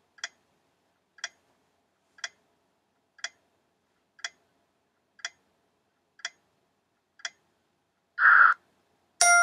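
Countdown-timer sound effect ticking once a second, eight ticks, then a short burst of noise about eight seconds in and a loud ringing chime near the end that fades slowly as time runs out.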